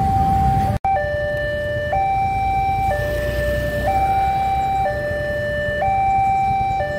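Railway level-crossing warning alarm sounding a two-tone hi-lo signal, switching pitch about once a second over a low rumble of traffic, which warns that a train is at the crossing. It drops out for an instant just under a second in.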